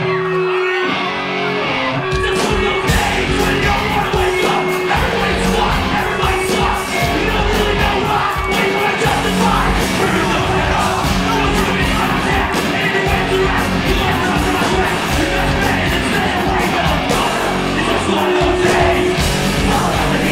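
Live rock band playing a song: a guitar alone at first, then drums and the full band come in about two seconds in, with singing and yelling over the top.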